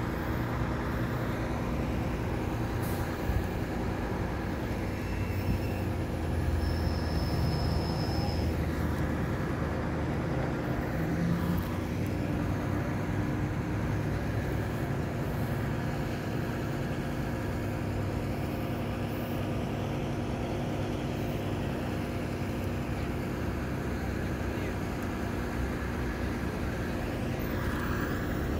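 A large vehicle's engine idling: a steady low hum with a few held tones, over general street traffic noise.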